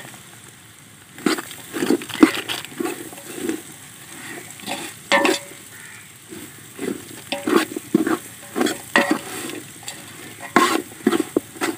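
Steel ladle scraping and stirring through onion, potato and palmyra-tuber masala frying in oil in a large metal pot, in irregular strokes starting about a second in, over a light sizzle.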